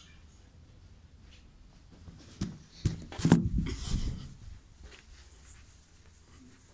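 Handling noise of the recording phone being picked up: a few knocks and a rubbing scrape a couple of seconds in, lasting about two seconds, with a quiet stretch before.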